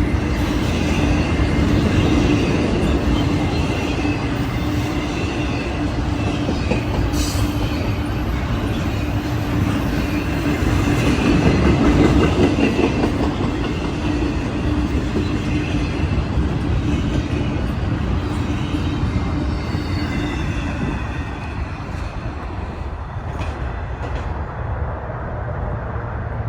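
BNSF freight train rolling past: a steady rumble of wheels on rail, with a faint high squeal of wheels on the rails. The low hum fades and the sound eases a little in the last few seconds.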